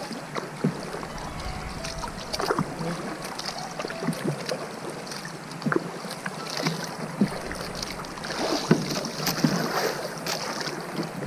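Water splashing and sloshing around a small outrigger canoe under way, with irregular knocks against the hull and wind rumbling on the microphone.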